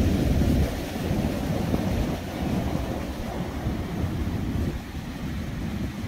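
Wind buffeting the microphone outdoors: a loud, gusting low rumble, strongest in the first half-second.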